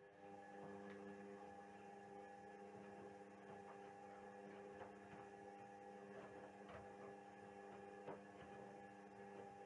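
Indesit WISL 62 washing machine running during its wash phase: a steady motor hum while the drum turns, with faint clicks and knocks from the load. The hum starts suddenly and runs for about ten seconds.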